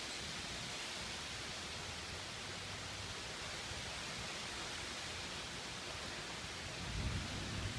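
Heavy rain falling, a steady even hiss, with a brief low rumble about seven seconds in.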